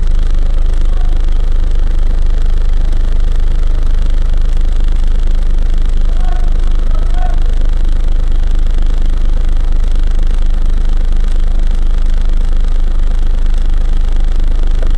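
Fire engine's engine idling, a loud, steady low rumble that holds even throughout.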